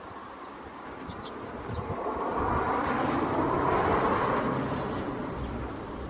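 A vehicle passing by: a rushing noise that swells gradually to its loudest a little past the middle and then fades away.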